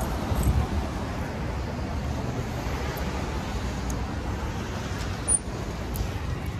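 Steady road traffic noise: the rumble of cars passing on a busy street.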